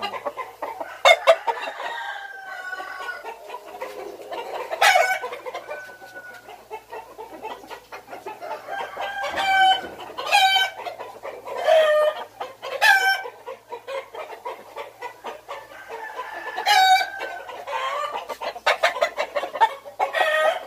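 Gà nòi gamecock roosters in their pens clucking over and over in short, pitched calls, with crowing now and then.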